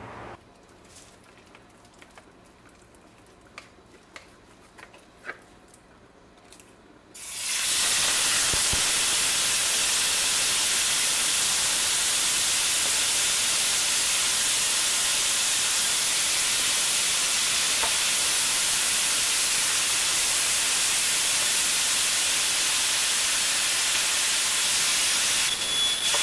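Loud steady hiss that starts suddenly about seven seconds in, after a quiet stretch with a few faint ticks. Near the end a smoke alarm starts sounding with a high tone.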